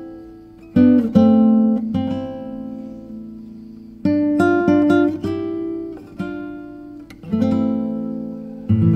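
Background music on acoustic guitar: plucked notes and chords that ring and fade, struck again in groups every second or few.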